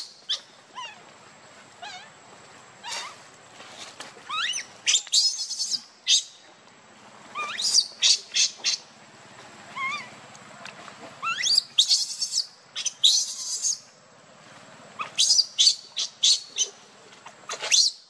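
Baby macaque crying with repeated short, high-pitched screams and squeals, many rising in pitch, coming in clusters every second or two; the uploader reads the crying as the infant being hungry for milk.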